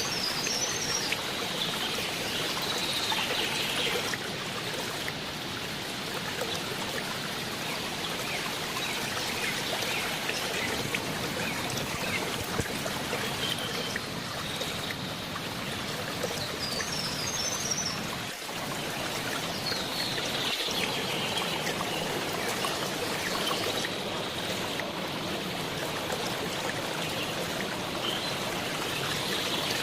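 Steady rushing of falling water at a waterfall, with a few short high chirps over it.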